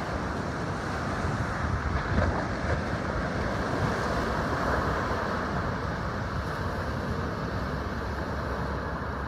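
Rough surf breaking and washing over a rocky shore in a steady roar, with wind buffeting the microphone.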